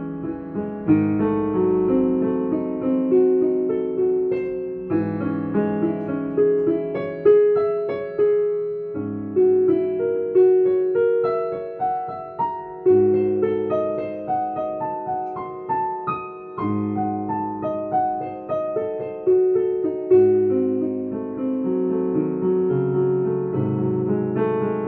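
Piano played solo: a melody of struck notes over chords and changing low bass notes, each note ringing and fading.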